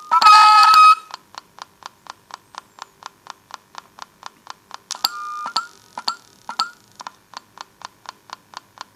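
Homemade electronic noise circuit, powered by citrus fruit cells, ticking steadily at about three clicks a second. A loud buzzing electronic tone sounds for about a second near the start, and shorter beeping tones break in about halfway through.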